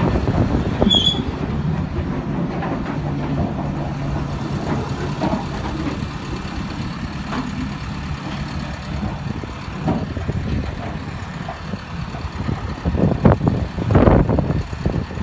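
Low, steady rumble of a large truck's engine running, with a steady low hum from about a second and a half in until about nine seconds. Louder, uneven gusts of rumbling noise come near the end.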